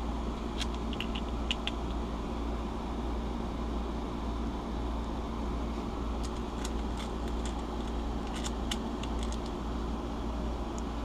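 Small lock pins being set into a lock cylinder: scattered light metallic clicks in small clusters over a steady low hum.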